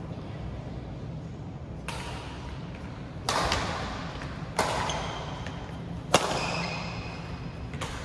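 Badminton rackets striking a shuttlecock in a rally: five sharp hits roughly a second and a half apart, the first about two seconds in, each with a short echo, over a steady low hum.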